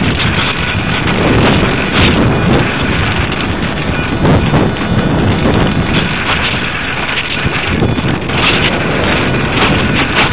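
Loud wind rush over the onboard camera microphone of a ParkZone Radian RC glider in flight, rising and falling in strength with no steady motor tone.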